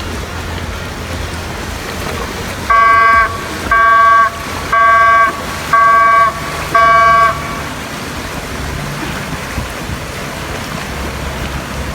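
A horn sounds five short, evenly spaced blasts of one steady pitch, over a steady low rumble.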